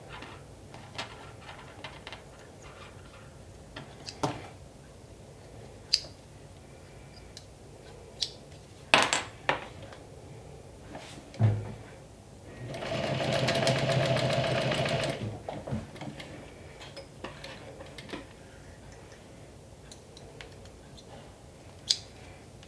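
Juki DU1181N walking-foot sewing machine running steadily for about two and a half seconds in the middle, stitching a single seam. Scattered short clicks and knocks of handling come before and after it.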